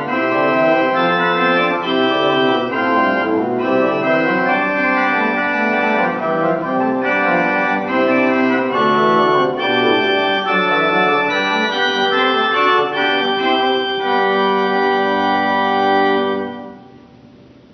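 1808 Christian Dieffenbach tracker-action pipe organ playing a piece in sustained chords. The music stops on a final chord near the end.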